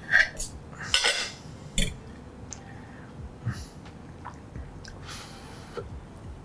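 Metal knife and fork clinking and scraping against a plate while cutting through a cheese-topped stuffed zucchini. There are several sharp clinks in the first two seconds, then only faint small noises.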